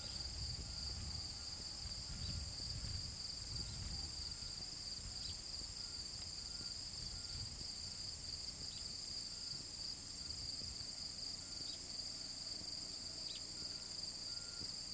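Steady, high-pitched chorus of insects such as crickets, with a fainter chirp repeating about every half second. A low rumble sits under it for the first few seconds.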